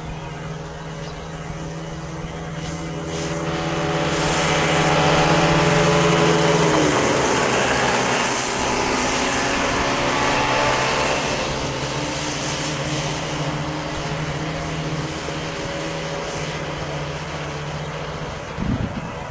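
Kid karts' small two-stroke engines buzzing as the karts drive past on the track, growing louder to a peak about six seconds in and dropping in pitch as they pass, then running on more quietly as they move away.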